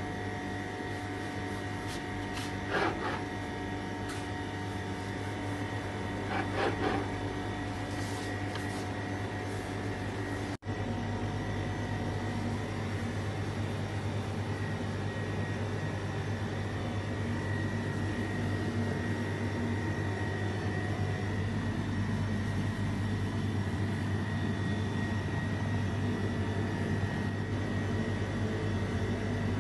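Steady machine hum with a constant whine, the kind a kitchen fan or air conditioner makes. Over it, a few short knocks of a knife on a plastic cutting board come in the first several seconds. About ten seconds in the sound breaks off for an instant, then the hum carries on a little louder.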